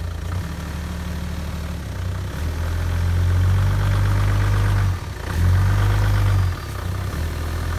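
Pickup truck engine running at low speed as the truck creeps forward onto a wooden block pressing down on a trailer tire to break its bead. It works harder in two pushes in the middle, with a brief drop between them.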